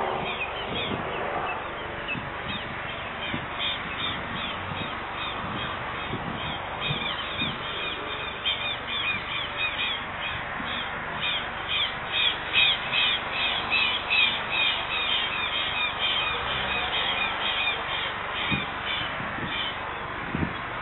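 A bird giving a long, rapid series of short repeated calls, several a second, loudest about midway and stopping shortly before the end, over steady background noise.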